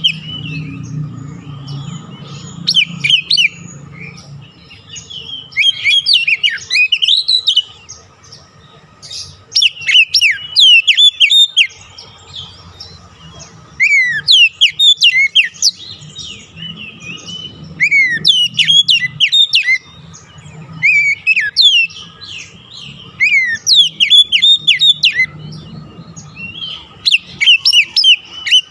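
Oriental magpie-robin singing in bursts of rapid, varied whistled phrases every few seconds, with a faint low hum underneath at times. This is the kind of loud, full song played to a stressed pet magpie-robin that has stopped singing, to set it singing again.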